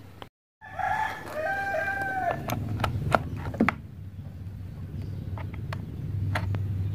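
A rooster crows once, about a second in, one call lasting under two seconds. Then come sharp clicks and knocks of plugs and cables being handled, as a power plug is pushed into a power strip.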